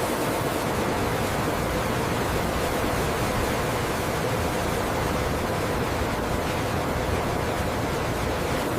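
Steady machinery noise, an even rushing hiss with a faint steady hum underneath.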